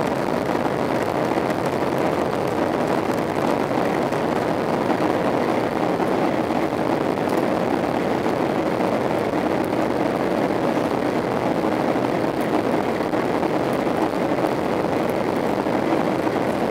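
Steady roar of a Boeing 737-800 in flight heard from inside the passenger cabin: the CFM56 turbofan engines and the rush of air over the fuselage, even and unchanging.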